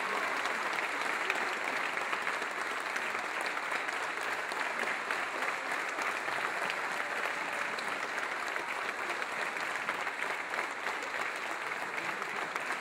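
Congregation applauding steadily: dense, sustained clapping from a large group.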